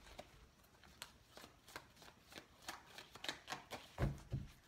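A deck of tarot cards being shuffled by hand: a quiet run of soft, irregular card clicks, with two dull knocks a little after four seconds in.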